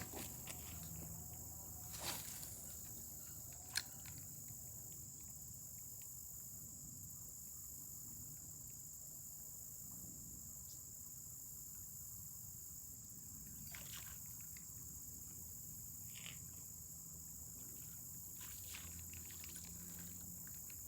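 Insects, such as crickets, chirring steadily at a high pitch, with a few faint clicks and taps scattered through.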